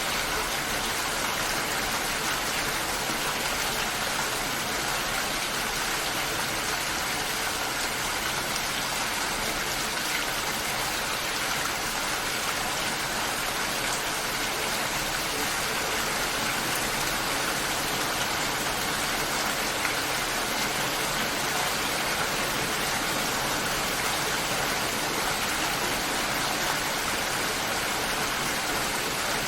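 Steady rain falling: an even, unbroken hiss of many drops with no thunder or distinct strikes.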